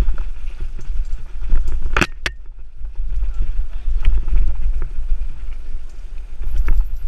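Mountain bike riding fast down rough singletrack: heavy wind rumble on the camera microphone, with the bike rattling and knocking over roots and rocks. There are two sharp knocks about two seconds in.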